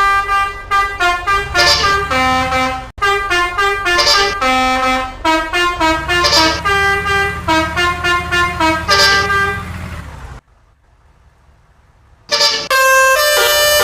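Telolet horn, a set of multi-tone horns, playing a quick melody of short notes. About ten seconds in it stops, then starts again nearly two seconds later with longer held notes.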